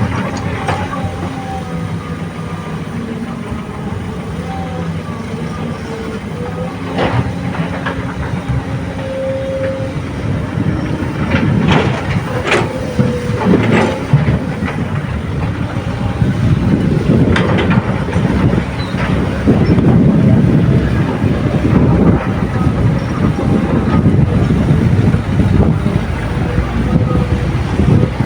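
Diesel engine of a Komatsu PC200 hydraulic excavator running under load, with scattered sharp knocks and rattling as rocky soil is dug and loaded. The engine grows louder and rougher about halfway through.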